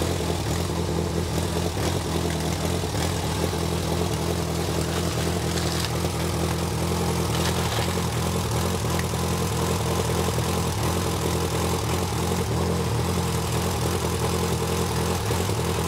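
1945 Waukesha ICK auxiliary power unit engine running steadily at a low idle. The owner says the governor won't kick in, so it can't be brought up to speed.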